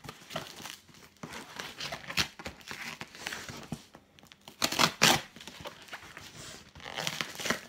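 A knife slitting the packing tape on a taped cardboard parcel, with the cardboard and tape tearing and crinkling as it is pulled open in a series of uneven rips. The loudest tearing comes about five seconds in.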